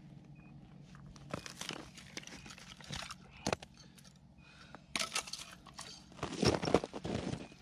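Boots crunching on snow-covered ice and an ice-fishing tip-up being handled at the hole: several separate crunches and scrapes, loudest near the end. Faint brief electronic chirps from a tip-up alarm come now and then.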